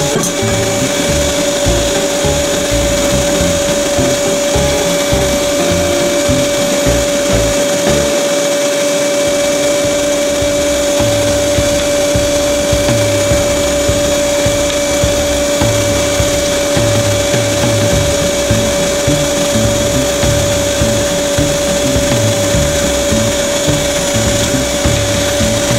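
Unold 8810 electric meat grinder's motor running steadily under load, with a constant humming whine and uneven low rumbling, as it pushes sausage meat through the stuffing tube into the casing.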